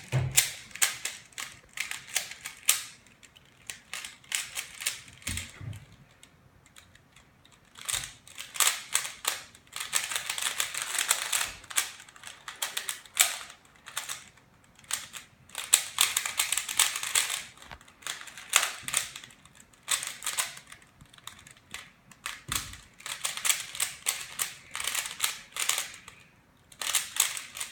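Rubik's Cube being turned fast by hand during a timed solve: runs of rapid plastic clicking as the layers snap round, broken by short pauses, the longest about six to eight seconds in.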